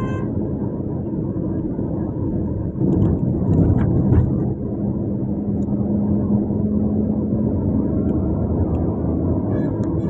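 Steady rumble of road traffic on the move, with a louder passing swell about three seconds in and a low steady hum for a few seconds after it.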